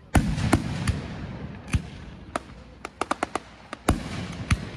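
Aerial fireworks shells bursting: a loud bang just after the start, then scattered sharp cracks, including a quick run of about five near the middle, and another loud bang near the end.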